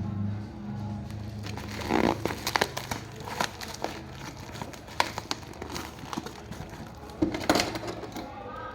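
Packaging crinkling and rustling in the hands during an action-figure unboxing, with irregular sharp crackles.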